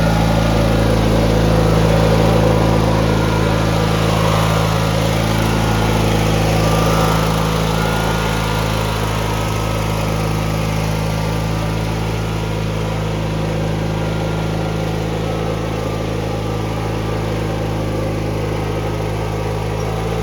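Riding lawn mower's small engine running at a steady speed, a little louder in the first several seconds.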